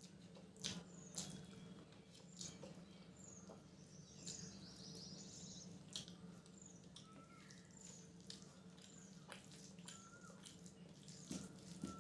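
Faint eating sounds: scattered wet mouth clicks and smacks of chewing rice and curry. Short high chirps come and go in the background, with a low steady hum.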